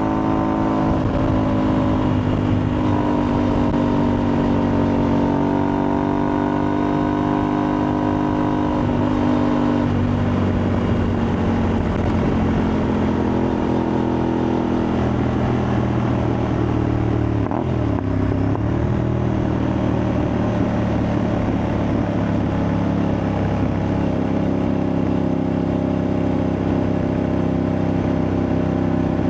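Aprilia Tuareg 660's parallel-twin engine, through an Akrapovič-replica exhaust, pulling steadily under way. Its pitch drops about ten seconds in, dips sharply and climbs back a few seconds later, as with a throttle lift or a gear change, then holds steady.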